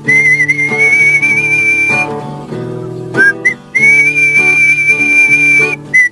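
Whistled melody in two long, slightly wavering held notes over strummed acoustic guitar chords.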